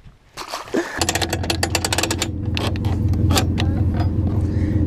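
A motor starts running about a second in and keeps running steadily, with a low hum and a rapid clicking clatter.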